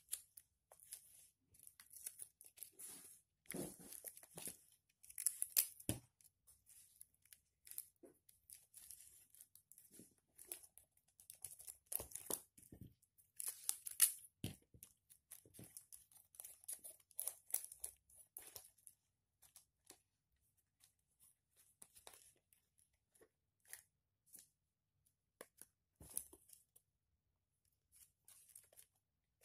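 Paper being handled: irregular rustling, crinkling and tearing sounds, busiest for the first two-thirds, then thinning to scattered faint ticks near the end.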